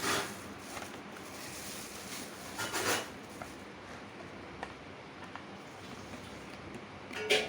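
Polythene bag crinkling in short bursts as its knot is untied and it is pulled open: once at the start, again about three seconds in, and once more near the end.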